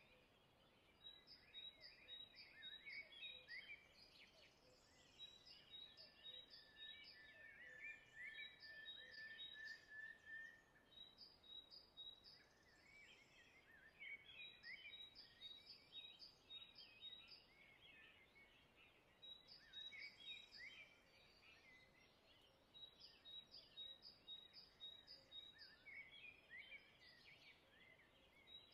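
Faint birdsong: runs of short, high chirps repeating in groups with pauses between them, and one long held whistled note about a third of the way in.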